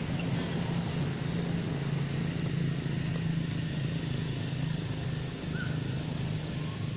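A steady low engine hum running throughout over a background hiss, with a short faint squeak about five and a half seconds in.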